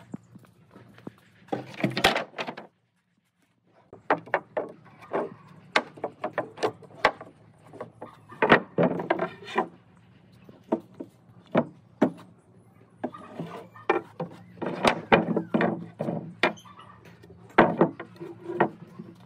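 Long wooden boards being handled on a wooden tabletop: a string of sharp wood-on-wood knocks as they are set down and shifted, with short scrapes as they slide against each other. A faint steady low hum runs underneath, and the sound drops out completely for about a second about three seconds in.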